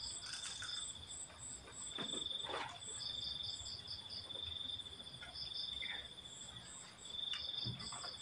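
Crickets chirping: one continuous high trill with other insects calling in quick, evenly spaced pulses above it. A few faint knocks and rustles come in between.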